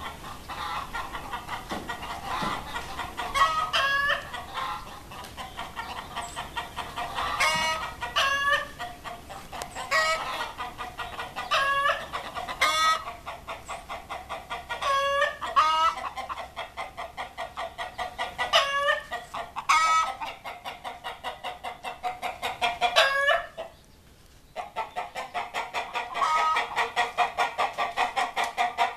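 A chicken squawking: fast runs of clucks, broken every second or two by a louder, drawn-out squawk, with a brief lull about four-fifths of the way through.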